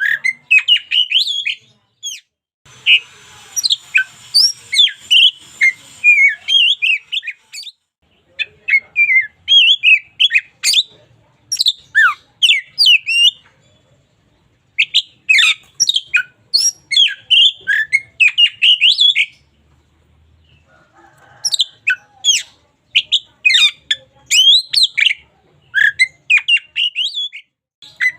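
Oriental magpie-robin singing: runs of quick, varied whistled notes and chirps, broken by a few short pauses between phrases.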